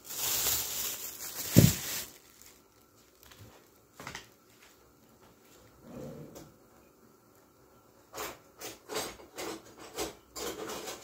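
A plastic bag of onions rustling and crinkling for about two seconds, with a sharp knock near its end. Then a kitchen drawer is pulled open and rummaged through, with a quick run of clicks and rattles near the end.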